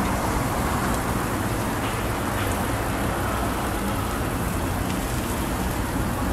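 Melted butter and egg-and-cabbage toast patties sizzling on a hot flat-top griddle, a steady even hiss, with a low hum underneath.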